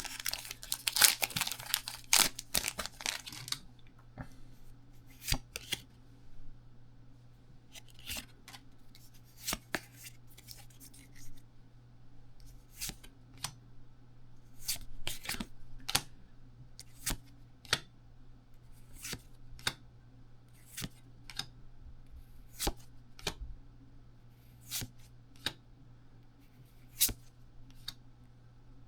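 A Pokémon trading-card booster pack's foil wrapper torn open in the first few seconds, then the cards flicked through one by one, a light snap about once a second. A low steady hum runs underneath.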